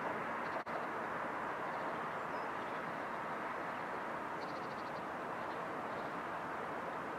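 Steady outdoor ambience over a town: a continuous, even hiss of distant traffic, broken by a split-second gap under a second in.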